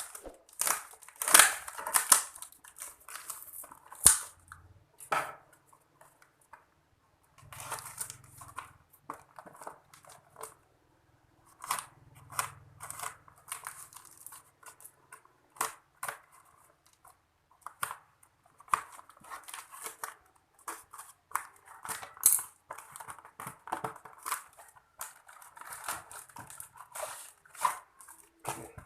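A parcel's packaging being handled and torn open by hand: irregular crinkling, tearing and scraping, with a few short pauses.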